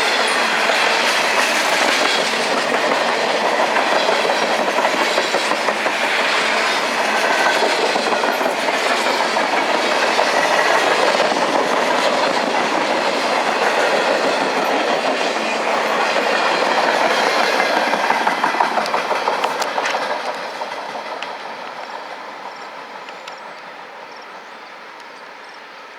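Cars of a passing CN freight train rolling by, the wheels clattering on the rails. About twenty seconds in the end of the train goes by and the sound fades away.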